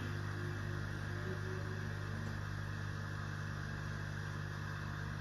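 Steady low electrical hum of a household appliance running, with a faint high whine over it.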